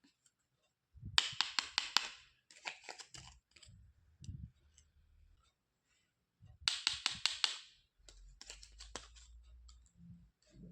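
Toy packaging being handled and opened by hand: two bursts of rapid crackling and clicking, each about a second long, about a second in and again near the middle, with softer rustling and light handling knocks between.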